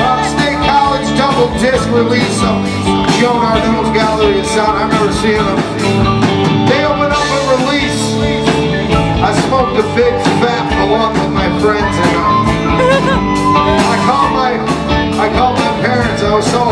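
Live rock band playing: drum kit keeping a steady beat under electric guitars.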